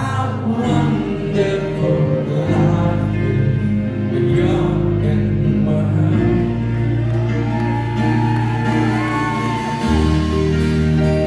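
Live rock band playing in a concert hall, with singing over held chords: electric guitars, bass, drums and grand piano. There is a bass change about ten seconds in.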